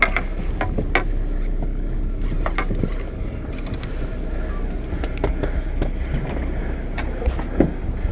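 Steady low rumble on the deck of a sportfishing boat at sea, with wind on the microphone and scattered sharp clicks and knocks over it.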